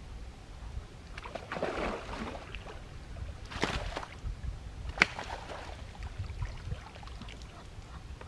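Water splashing in a few bursts as a hooked carp is brought in and scooped into a landing net, with a single sharp click about five seconds in.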